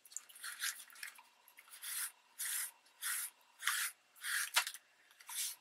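Soft cloth rubbed back and forth over an embossed magazine image glued to paper, in quick hissing strokes about two a second, wiping the ink off the surface. There is one small sharp tap near the end.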